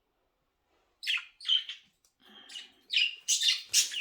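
Budgerigars chirping in short, high calls, starting about a second in and coming thicker and faster toward the end.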